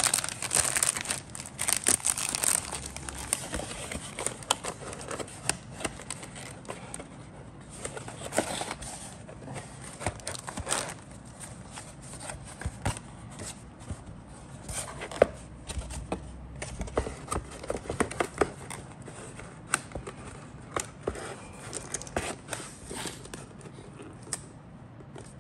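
Clear plastic bags holding model-kit sprues crinkling under a hand, densest in the first few seconds, followed by scattered rustles, taps and clicks as the cardboard kit box is handled.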